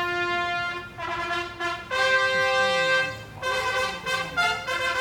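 Orchestral brass section playing: long held notes, then a louder held chord, then shorter, quicker notes from about three and a half seconds in.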